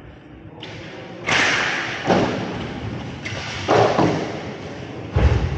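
Impacts from inline hockey play: four hard knocks spread over about four seconds, each ringing out in the rink's echo, the last the heaviest and deepest.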